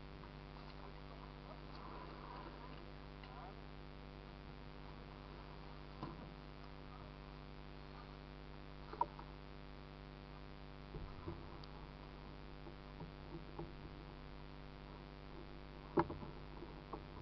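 Camera handling noise: scattered knocks and rubbing as the camera is moved about, the loudest knock near the end, over a steady low hum.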